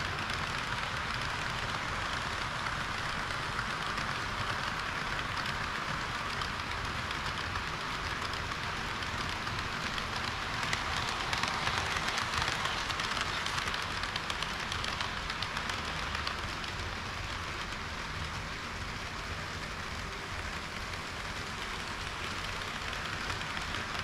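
HO-scale model trains running on sectional track: a steady rattling hiss of metal wheels rolling over the rails and joints. It grows a little louder around the middle as a KiHa 40 series railcar set passes close by.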